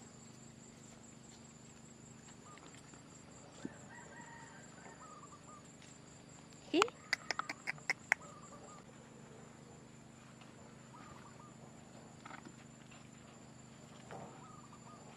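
Faint poultry calls on and off. A short, sharper cry rises about seven seconds in, followed by a quick run of clicks.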